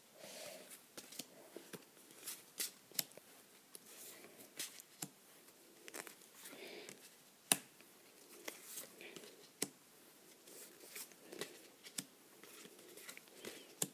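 Trading cards being handled and laid down on a table: faint sliding and rustling with scattered light clicks as card edges tap, the sharpest about seven and a half seconds in.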